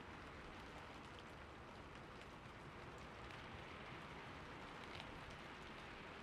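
Faint, steady splashing water with small scattered drips ticking through it.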